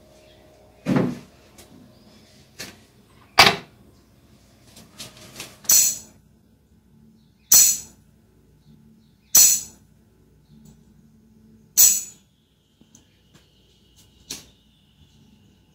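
A tambourine struck sharply about six times, roughly every two seconds, its jingles ringing bright on the later hits.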